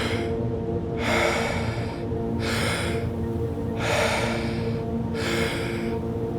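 Deep, rhythmic Wim Hof-style power breathing: strong breaths recur about every second and a half. They pace the round's 40 breaths over a steady ambient music drone.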